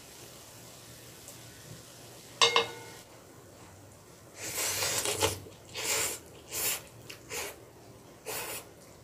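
Ramen noodles slurped in a long pull about four seconds in, followed by four shorter slurps about a second apart. Earlier, about two and a half seconds in, comes one short ringing clink of a utensil on the dish.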